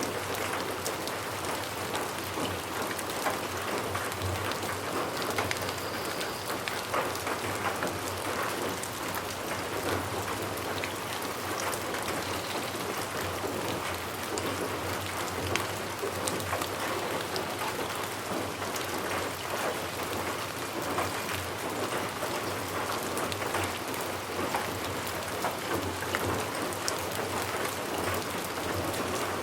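Steady rain falling on a surface, a constant even hiss with many individual drops ticking through it.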